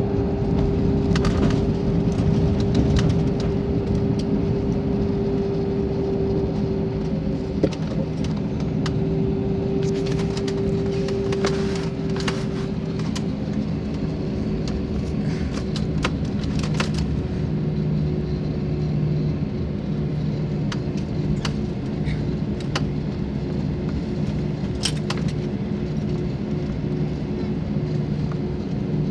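Airbus A320-family jet airliner heard from inside the cabin as it slows after landing and taxis off the runway: a steady rumble of engines and rolling with a held hum tone, and scattered short clicks and rattles.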